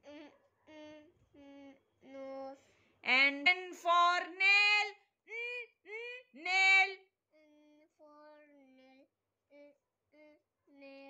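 A high singing voice carrying a short melody of held notes: soft, lower notes at first, a louder, higher phrase with some notes sliding upward in the middle, then soft, lower notes again.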